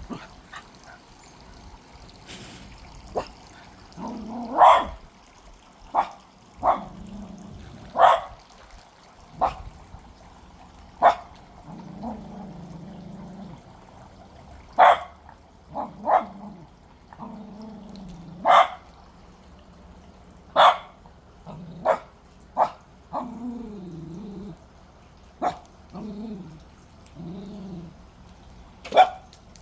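Cocker spaniel puppy barking: about fifteen single sharp barks, spaced irregularly a second to a few seconds apart. Lower, wavering drawn-out sounds come between some barks, most of all near the end.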